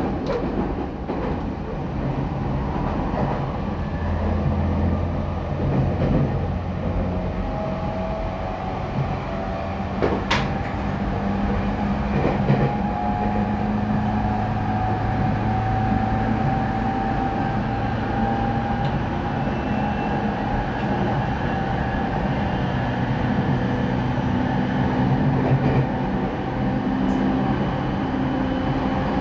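Running sound inside a refurbished Tokyo Waterfront Area Rapid Transit 70-000 series electric train: steady wheel-and-rail rumble, with a traction-motor whine that slowly rises in pitch from about seven seconds in as the train gathers speed. A single sharp click comes about ten seconds in.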